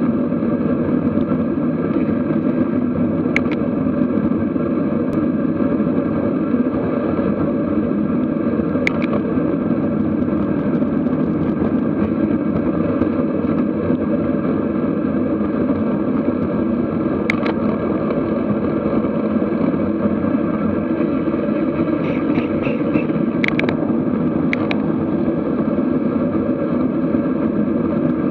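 Steady rush of wind and road noise on a bicycle-mounted camera riding at about 30–36 km/h, with a few sharp clicks scattered through.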